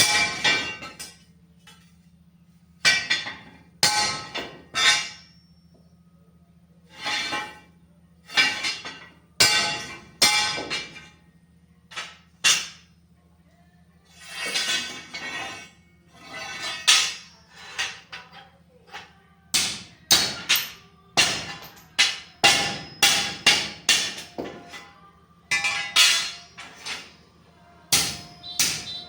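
Hammer blows on steel angle iron, each strike ringing briefly, in irregular groups that come faster near the end, over a steady low hum.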